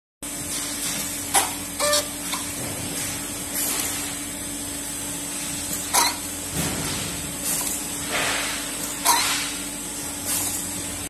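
Trumpf Trumatic 500 CNC punching press running: a steady hum with a constant low tone under a steady air hiss. A few short sharp metallic clicks come through, twice near the start, once about six seconds in and once about nine seconds in.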